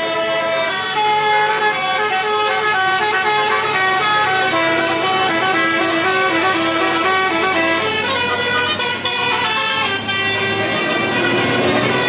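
Bus telolet horn: a Basuri multi-tone air horn playing a quick tune of held notes that step up and down, over a low steady drone.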